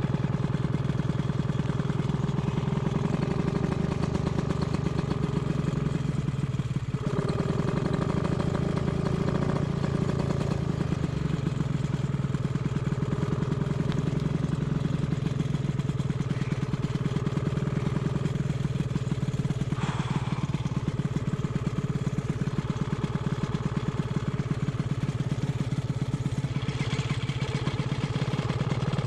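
Paramotor engine idling steadily on the pilot's back, its pitch holding level without revving.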